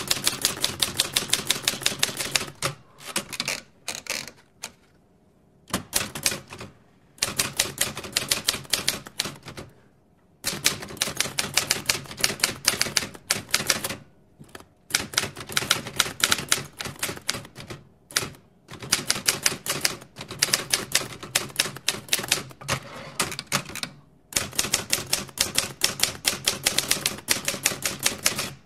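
Mechanical typewriter being typed on in quick runs of key strikes, each run a few seconds long, broken by short pauses.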